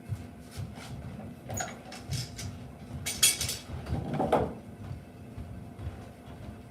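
Hand-tool woodworking on a timber joint: scattered light knocks and clicks of tools and wood being handled, with a short scraping stroke about three seconds in and a duller one about a second later.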